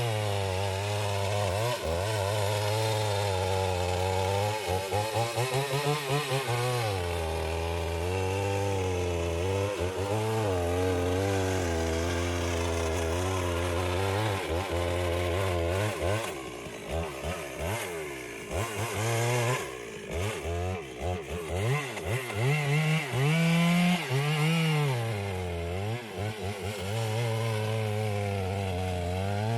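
Chainsaw running and cutting wood, its engine pitch rising and falling with the throttle. In the middle stretch it drops back and blips several times before running up again.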